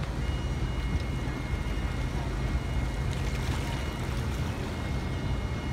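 Steady wind rumble on the microphone over the wash of river water, with a steam sternwheeler's paddlewheel churning in the distance.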